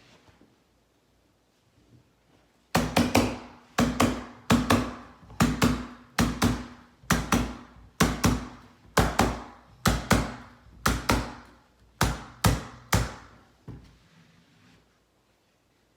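Repeated sharp knocks, many in quick pairs, about one a second, from a carpet runner being fastened down onto a stair. They start about three seconds in and stop a couple of seconds before the end.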